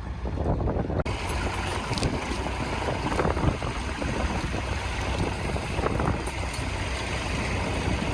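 Massey Ferguson 65 tractor engine running steadily while ploughing, with wind buffeting the microphone.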